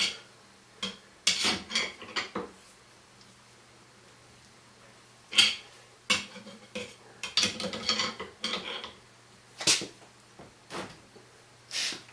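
Irregular metal clinks and clanks of steel hand tools and parts being handled and knocked together, some sharp and ringing, in bunches with short pauses between.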